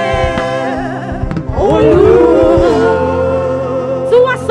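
Gospel praise singing with band accompaniment: a woman's voice holding long notes with vibrato, over steady backing and low drum strokes.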